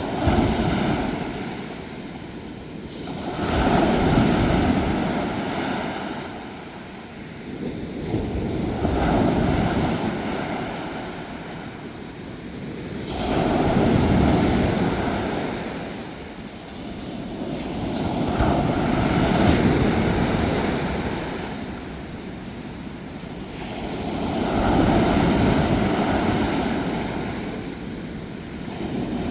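Sea waves surging in and washing back, in slow swells about every five seconds.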